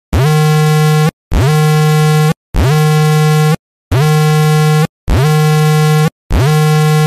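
A loud electronic buzzer sound effect sounding six times, each buzz about a second long with a quick upward swoop at its start, repeating about once every 1.2 seconds.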